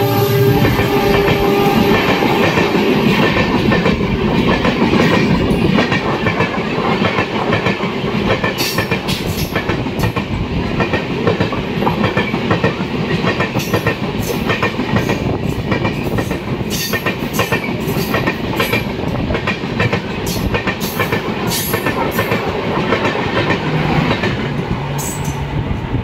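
Passenger coaches of an express train passing close by at speed: a steady, loud rush with wheels clattering over the rail joints. The clicks grow sharper and more frequent from about eight seconds in.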